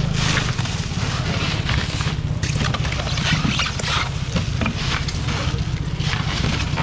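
A steady low mechanical hum, like an engine running, under scattered short rustling and handling noises.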